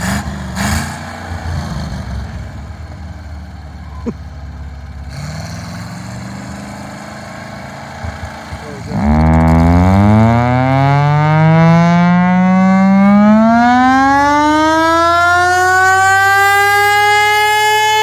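Chrysler air raid siren's Hemi V8 engine running steadily, then about nine seconds in the siren spins up: a loud wail with many overtones gliding steadily upward in pitch and levelling off near full speed near the end.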